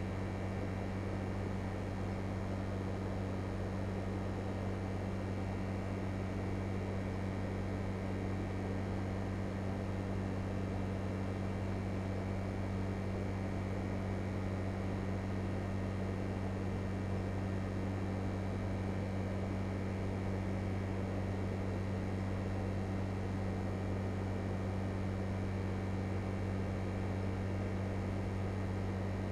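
LG Multi V 5 air conditioner running steadily: a constant low hum under an even hiss of noise, with no change in level.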